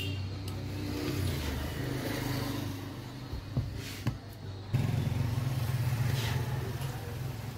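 A steady low mechanical drone, like traffic or an engine running, that steps up suddenly a little before five seconds in. Just before the step there are two sharp clicks half a second apart as the mixer grinder's motor is handled on the bench.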